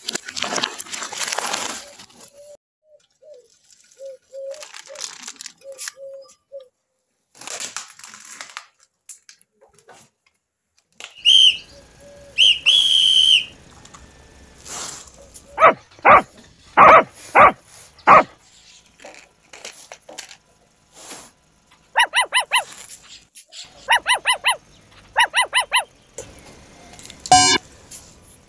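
Foil-lined paper plates and clay cups crunching under a motorbike tyre, followed by a string of high whistle-like squeaks and rapid chirping calls in short groups.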